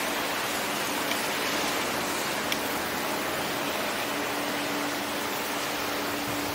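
Steady, even hiss of air and lift noise while riding a chairlift, with a faint steady hum underneath and a few faint ticks.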